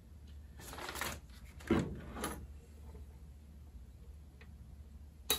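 Handling noise as a small circuit-trainer box is moved on a wooden desk: a rubbing scrape, then a knock and a softer knock, and a sharp click near the end.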